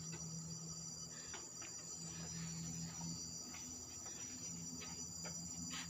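Steady high-pitched chorus of forest insects, with faint irregular knocks of footsteps on the stair treads.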